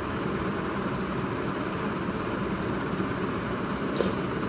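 Steady even background noise, like a room fan running. About four seconds in comes a single short mouth smack as a handful of khichuri goes into the mouth.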